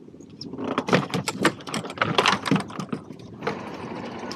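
A run of rapid, irregular clicks and rattles starting about half a second in and stopping after about three seconds.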